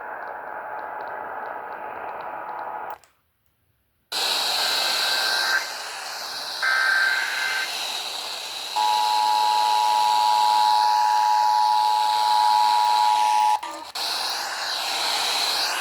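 AM radio reception of an Emergency Alert System activation over steady static hiss with faint gliding whistles of interference. After a brief dropout to silence about three seconds in, two short data bursts of the SAME header screech sound about a second apart. They are followed by about five seconds of the steady two-tone EAS attention signal, which cuts off abruptly near the end.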